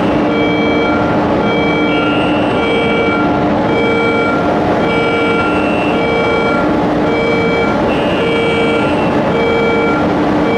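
Railcar indexer moving a hopper car, with steady machinery noise under a warning alarm that alternates between two pitches and repeats about once a second.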